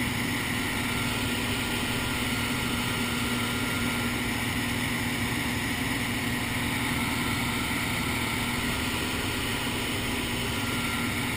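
Small single-engine propeller plane's piston engine and propeller running in a steady drone, heard from inside the cabin.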